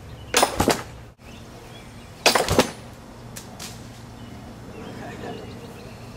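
Homemade wooden torsion catapult (onager, twisted nylon rope) firing twice, about two seconds apart: each time the released arm swings up and slams into the padded crossbar with a loud thud and a short clatter.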